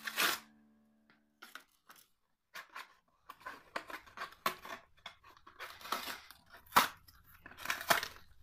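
Hot Wheels cardboard-and-plastic blister pack being opened by hand: a sharp rip at the start, then after a short pause a run of irregular ripping and crinkling of card and plastic, loudest near the middle and near the end.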